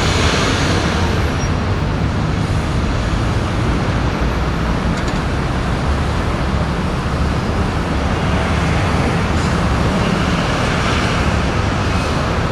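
Steady city road traffic noise: passing cars and trucks blending into one constant din.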